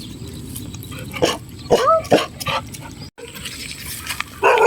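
A dog whining with a short rising-then-falling call about two seconds in, among scattered knocks and clicks. Near the end a louder held cry begins.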